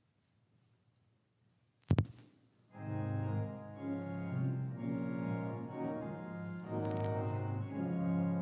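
Near silence, then a sharp double knock about two seconds in. Just under a second later an organ begins playing slow music in held chords with a steady bass.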